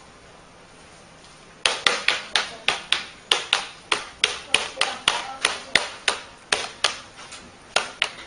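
A quick series of sharp taps or knocks on something hard, about three a second, starting about a second and a half in.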